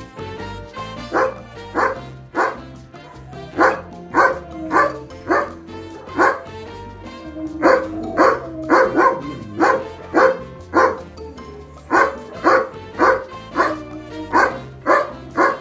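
German Shepherd barking over and over in quick runs of several short, sharp barks, about two a second, with background music underneath.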